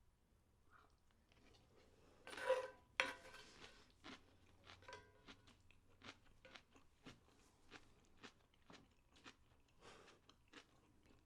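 Faint, close chewing of a mouthful of garlic fried rice, with soft crunchy clicks about twice a second. A louder scrape and a sharp click come about two and a half to three seconds in.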